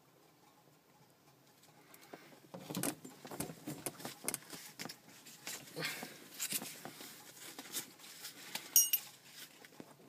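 Irregular rustling, clicks and knocks of something being handled, starting about two and a half seconds in, with a brief high tone near the end.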